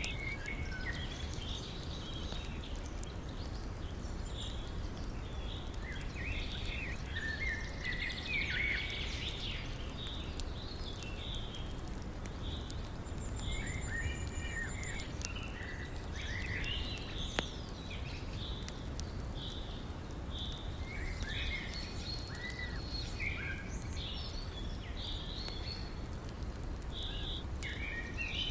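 Birds singing and calling over the steady rush of a river, with scattered crackles and pops from a wood campfire.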